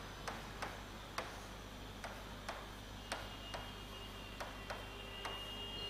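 Faint, sharp clicks, about two a second at uneven spacing, over a steady low hum.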